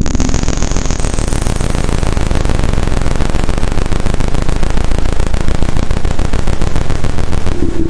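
Roland S-1 synthesizer playing a loud wash of white noise over a low drone. A high whistling tone sweeps upward over the first two seconds, and a fast fine pulsing runs through the noise. Near the end the noise falls away and a steady mid-pitched tone comes back.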